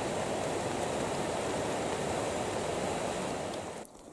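Creek water rushing steadily through a small open rapid between snow banks. It cuts off abruptly near the end, leaving a much quieter background.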